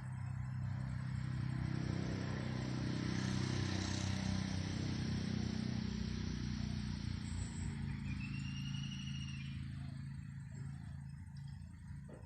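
A motor vehicle passing by: a low engine hum with road noise that swells over the first few seconds and fades away near the end. A brief high chirp sounds about two thirds of the way through.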